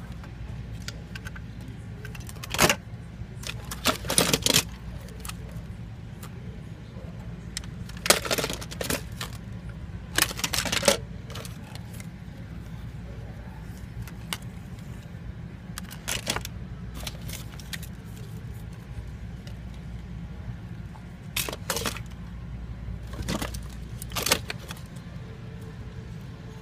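Hard plastic toy figures clattering and knocking against each other as a hand rummages through a bin of them, in short rattling spells every few seconds, over a steady low hum.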